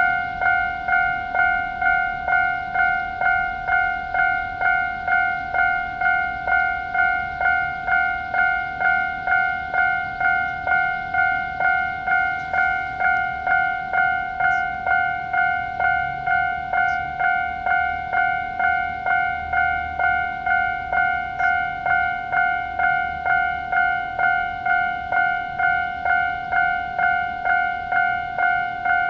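Japanese railway level-crossing alarm, the standard electronic warning tone, ringing steadily at about one and a half dings a second. It is a little high in pitch.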